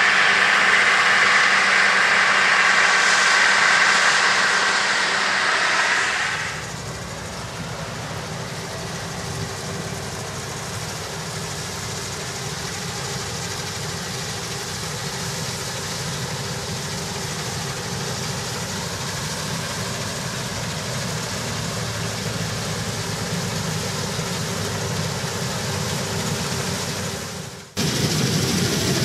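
Claas Lexion 760 TerraTrac combine harvesting protein peas. Close up, there is a loud, even hiss of straw and chaff sprayed out behind the machine over its engine. About six seconds in this drops suddenly to the combine's steadier, quieter hum of engine and threshing from farther off, then swells suddenly louder again just before the end.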